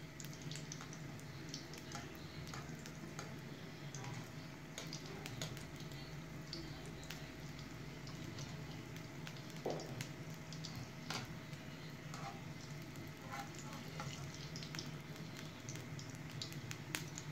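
Urad dal vadai deep-frying in hot oil in a kadai: a steady sizzle with scattered crackles and pops.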